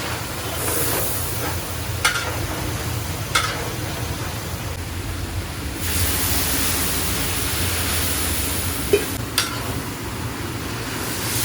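Food frying in a large cooking pot with a steady sizzling hiss, and four sharp metallic knocks.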